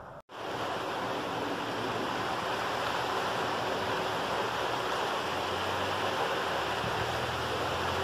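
Steady rain falling, a dense even hiss of water, beginning abruptly a moment in.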